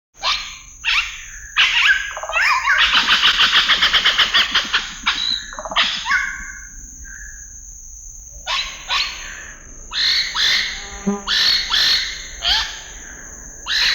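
Amazon rainforest birds calling: loud, sweeping calls, with a fast run of repeated notes a few seconds in. A steady high whine runs underneath.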